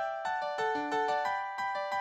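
Background music on a keyboard instrument, piano-like, playing a quick melody of evenly spaced notes, about four a second.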